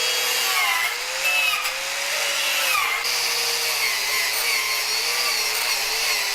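Angle grinder with a wire wheel running against a forged steel knife blade, brushing off the forge scale. Its motor whine dips and wavers in pitch as the wheel is pressed onto the steel.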